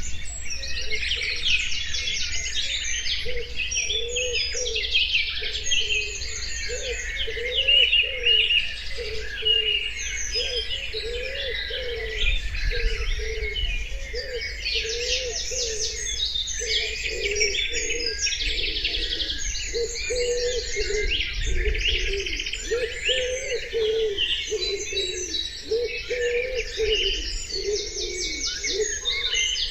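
Many small songbirds chirping and singing at once, with a lower call repeated steadily underneath throughout.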